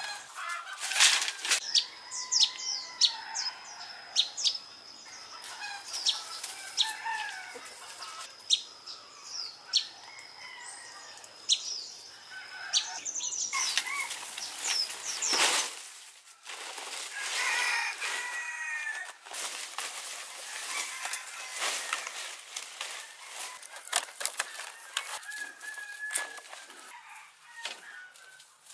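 Fresh fan-palm fronds rustling and slapping as they are carried, dropped and sorted into piles, with short knocks of bamboo poles. Chickens cluck and call in the background, and a thin steady high tone runs through the first half.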